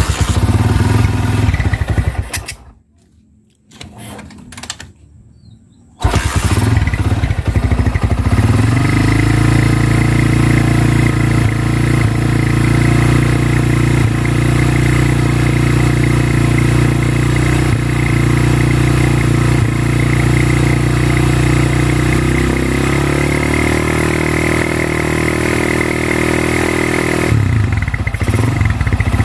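Small motorcycle engine running, in a few abrupt stops and starts over the first several seconds, then steadily, with its pitch rising a little about three-quarters of the way through. The owner takes the engine for worn out and in need of a full rebuild.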